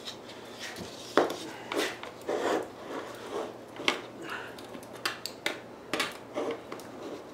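Wooden stir stick scraping and knocking inside a metal pot, a dozen or so irregular scrapes and clacks, as it digs at half-melted polyethylene that is stiffening and sticking to the pot.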